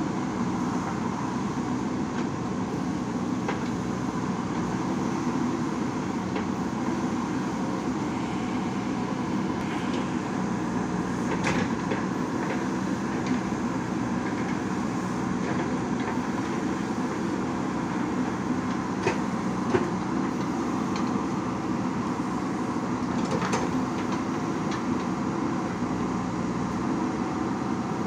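JCB backhoe loader's diesel engine running steadily under digging work, with a few sharp knocks, the loudest about two-thirds of the way through.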